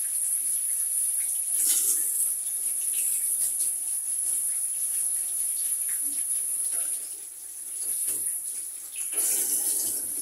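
Water spraying from a handheld shower head onto a cat in a bathtub, a steady hiss. It dies down for a moment about seven seconds in, then comes back.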